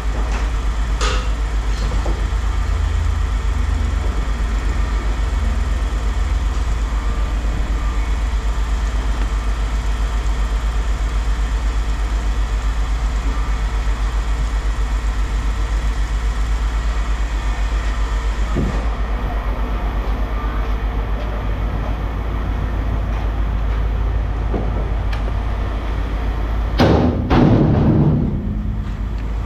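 An engine running steadily with a low rumble and a faint hum over it. A louder clatter comes near the end.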